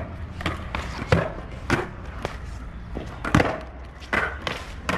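Skateboard doing freestyle tricks on stone tiles: wheels rolling, with the board clacking down onto the tiles about six times. The loudest knocks come about a second in and just past three seconds in.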